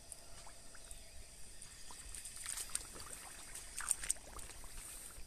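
Light splashing and squelching of a hand and feet in shallow muddy water, scattered small splashes that come more often in the second half, over a steady high chirring of insects.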